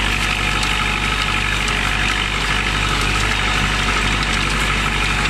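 IMT 560 tractor's diesel engine running steadily, heard from on the tractor.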